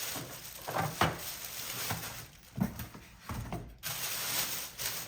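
Handling noise as a mini fridge is taken out of its box and its packaging: rustling with several light knocks and bumps.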